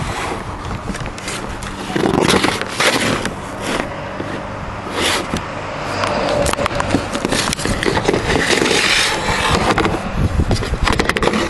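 Rough scraping and rubbing noise with scattered knocks and clicks, from the handheld camera being moved and handled on the camper roof.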